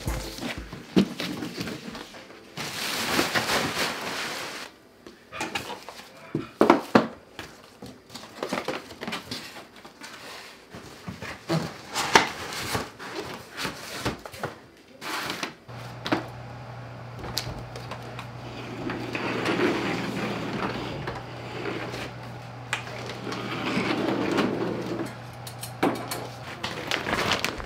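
Belongings being handled and moved: rustling of plastic and bags, with irregular knocks and thuds as a suitcase, box and other items are shifted and set down. A steady low hum comes in about halfway through.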